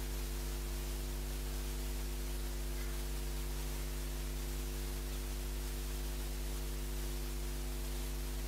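Steady electrical hum with several buzzing overtones over a constant hiss, with no other sound: mains hum and noise in the recording chain.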